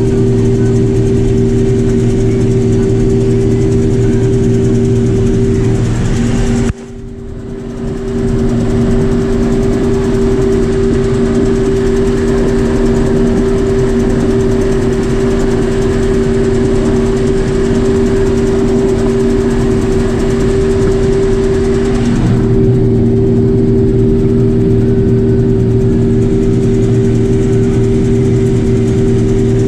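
Combine harvester running steadily while harvesting wheat: a continuous engine drone with constant humming tones. About seven seconds in, the sound drops suddenly and builds back up over a second or so.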